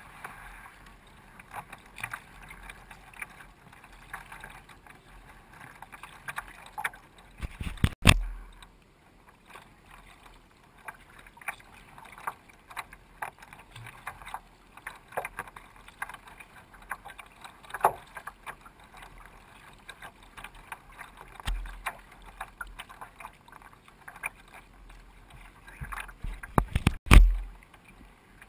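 Sea kayak being paddled: irregular splashes and drips of water from the paddle blades on each stroke, with water lapping along the hull. Two loud thumps stand out, about a third of the way in and again near the end.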